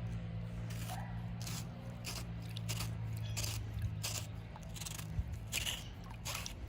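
A steady low engine hum, the truck engine running the carpet-cleaning unit, under a string of short scraping strokes about two a second, as a pipe wrench turns a pipe fitting that has just been broken loose.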